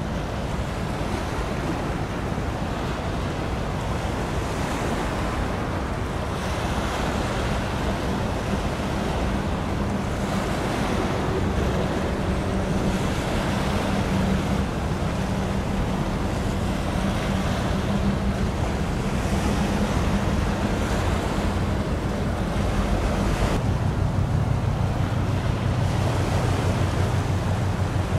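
Wind on the microphone and the wash of sea water, under a low steady drone from a large passing container ship. The hum drops lower about three-quarters of the way through.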